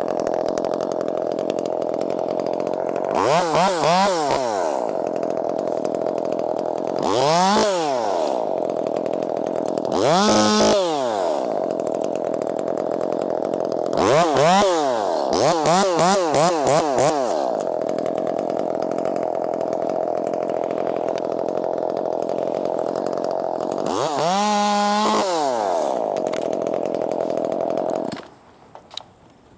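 Gas chainsaw running at idle, opened up to full throttle in about six short bursts, with a quick series of blips around the middle, before it cuts off near the end.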